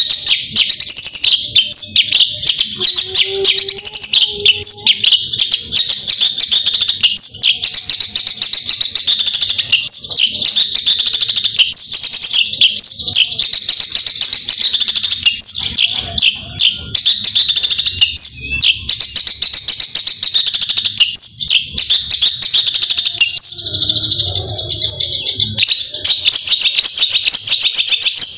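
Long-tailed shrike (cendet) singing a fast, almost unbroken stream of high chattering and whistled notes. The song breaks off briefly about three-quarters of the way through, while a lower sound is heard.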